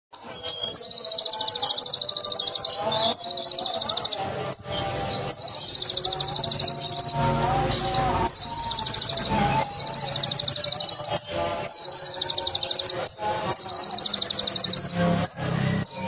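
Kolibri ninja (Van Hasselt's sunbird) singing its 'roll tembak' song: about seven long, high, very fast rolling trills, each a second or two long, broken by short sharp chips.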